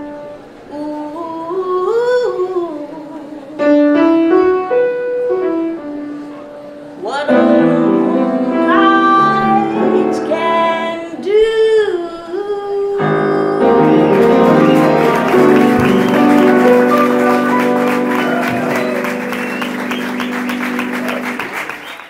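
A woman singing a slow jazz song, her voice gliding and wavering, over piano accompaniment. About thirteen seconds in the accompaniment swells into fuller, louder held chords with a quick steady ticking above them, then fades out at the close.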